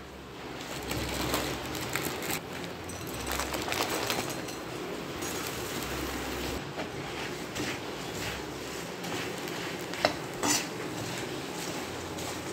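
Metal perforated spoon scraping and clinking against a kadhai over a light sizzle of peanuts frying in oil, then dry puffed rice poured into the pan and stirred. There are two sharp metal clinks about ten seconds in.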